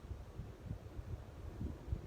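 CEC Georgian ceiling fan spinning down after being switched off, its blades coasting. The sound is a low, uneven rumble like air buffeting the microphone.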